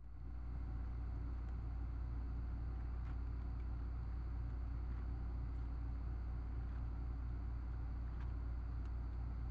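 Steady low hum with a hiss over it, the constant background noise of a trail camera's recording, with a few faint clicks scattered through.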